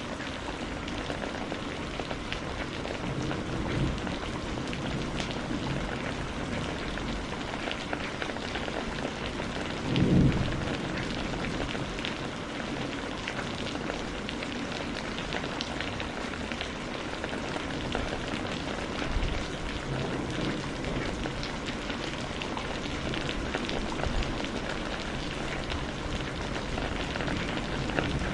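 Steady rain falling, with many individual drops ticking on a surface. A brief low rumble about ten seconds in is the loudest moment, with fainter ones before and after.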